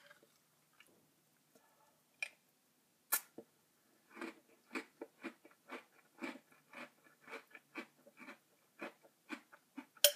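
Crunchy Lucky Charms cereal being chewed, at about two chews a second from a few seconds in. A metal spoon clinks sharply against the bowl twice early on and once near the end.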